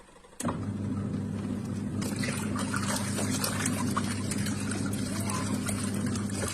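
Belt-driven washing machine motor switched on about half a second in, running with a steady hum. From about two seconds in, water sloshes and splashes in the tub, and the motor cuts off near the end.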